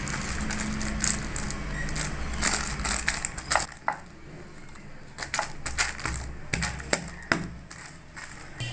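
A thin plastic sheet crinkling and crackling as hands press and pat a mound of hot jaggery-and-peanut chikki mixture flat on it. There are many quick sharp crackles, thickest in the first four seconds and again from about five to seven seconds in.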